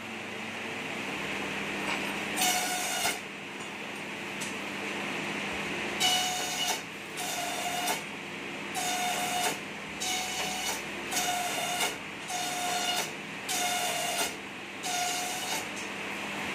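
Bamboo satay-skewer slicing machine running with a steady hum. About eight times, a bamboo piece passes through the cutter, each pass a short pitched whine lasting under a second, repeating about every second and a half.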